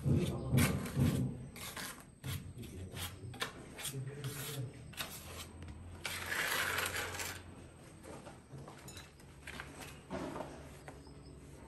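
Small trowel scraping and clicking against the granite tile edge and brick as wet cement is packed by hand into the joint above the tile, in short irregular strokes, with a longer rasping scrape about six seconds in.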